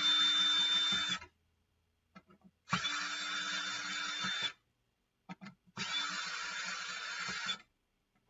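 Cordless drill fitted with a Torx (star) bit, run in three short bursts of about a second and a half each with a steady whine, backing screws out of a hard drive.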